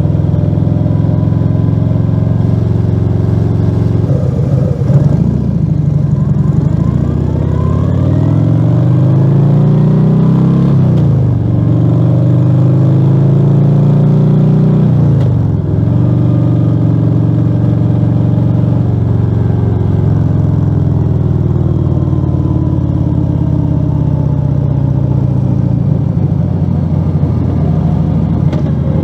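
Harley-Davidson Fat Bob 114's Milwaukee-Eight 114 V-twin running through a Rinehart slip-on exhaust with the dB killer removed, under way. The engine pitch climbs under acceleration and drops sharply twice near the middle at gear changes, then settles into a steady cruise.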